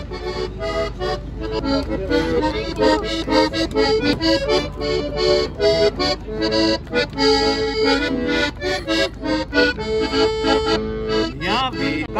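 Hohner button accordion played live: a tune of quick melody notes over steady sustained chords.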